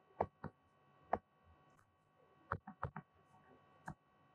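Stylus tapping and clicking on a tablet screen during handwriting: about half a dozen sharp, irregular taps over a faint steady hum.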